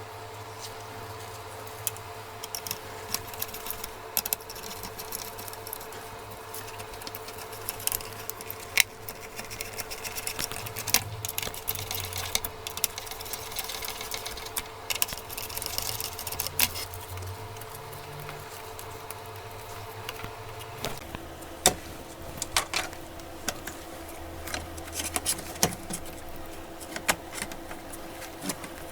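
Small clicks and taps of tools and parts being handled during laptop disassembly, over a steady mechanical hum whose pitch drops suddenly about two-thirds of the way through.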